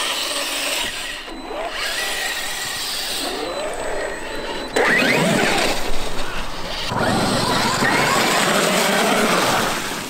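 Traxxas X-Maxx electric RC monster truck driving hard, its brushless motor whining up and down in pitch with the throttle. The level jumps suddenly a little under five seconds in, and tyres churn noisily over the ground near the end.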